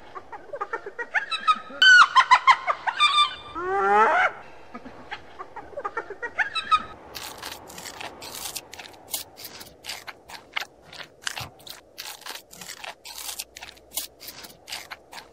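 Spotted hyena calling in short pitched notes, with one rising whoop about four seconds in. Then, from about halfway, a giant panda chews bamboo stalks in sharp, irregular crunching cracks.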